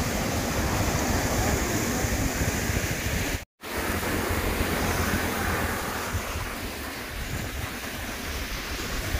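Wind buffeting the microphone over the wash of surf, an even rushing noise with a fluttering low rumble. It cuts out completely for a moment about three and a half seconds in.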